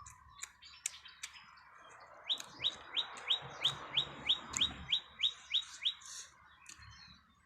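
A bird calling a quick run of about a dozen short rising chirps, roughly three a second, with a few scattered small clicks before it.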